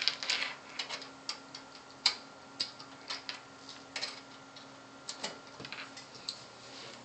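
Irregular sharp clicks, two or three a second, the loudest about two seconds in, over a faint steady low hum.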